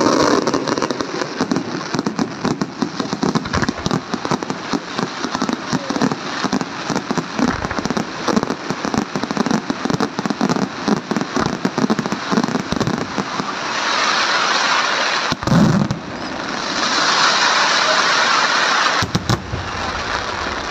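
Aerial fireworks display by Luigi Di Matteo: a rapid, dense volley of shell bursts and crackling reports. About 14 s in it gives way to an even hissing crackle, broken by a loud bang, then a few sharp cracks near the end.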